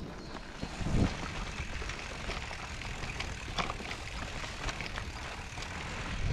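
Mountain bike rolling along a muddy forest trail: steady tyre and wind rumble on the rider's camera microphone, with a heavy knock about a second in and scattered clicks and rattles from the bike.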